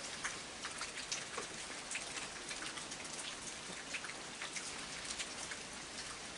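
Steady heavy rain falling, with many sharp ticks of single drops landing close by.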